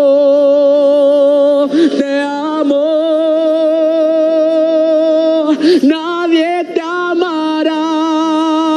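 Male singer holding long, high sung notes with a wide vibrato, taking a quick breath about two seconds in and again near the middle. After that he moves through a few short pitch steps before settling into a final held note.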